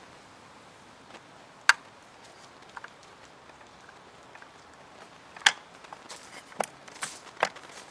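Sharp clicks of the PS90's polymer body halves and small internal parts being handled and fitted together: two loud clicks, one about two seconds in and one about five and a half seconds in, then a few lighter clicks with handling noise near the end.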